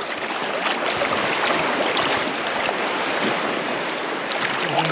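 Sea water splashing and sloshing right at the waterline as a person swims, a steady wash of many small splashes.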